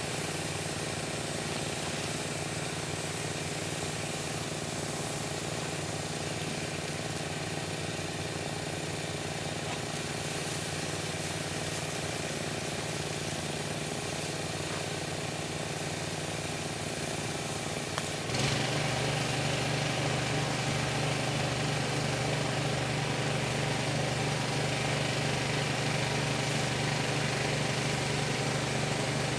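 Pressure washer's engine running steadily. About two-thirds of the way through, the engine note changes and gets louder, and a steady hiss joins in.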